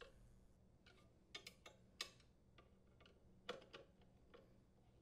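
A handful of faint metallic clicks at uneven intervals as a wrench turns the mounting nuts on a water shutoff valve's pipe brackets.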